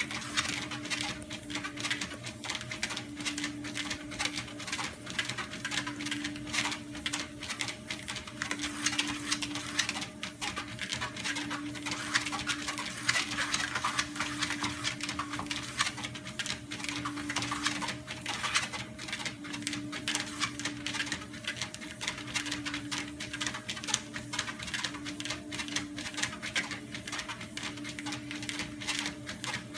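A corgi's claws and paws pattering on a moving treadmill belt in quick, steady ticking steps. Under them runs the treadmill's steady hum, one tone of which swells and fades about every two and a half seconds.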